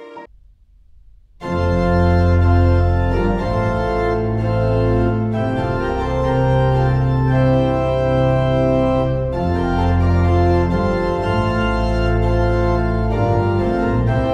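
Organ music with sustained chords over a low bass line. It starts about a second and a half in, after a brief silence.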